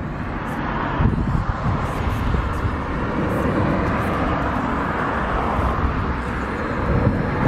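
A car driving past on a country road: a steady rush of tyre and engine noise that swells in the middle, with wind rumbling on the microphone.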